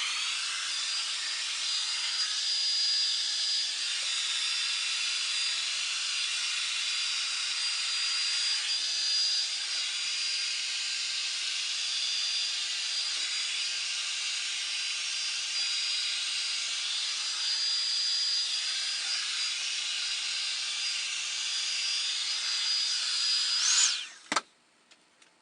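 Revlon One Step Volumizer hot-air brush dryer running steadily on its low setting: a rushing blow of air with a high, steady motor whine. It cuts off suddenly near the end, followed by a single click.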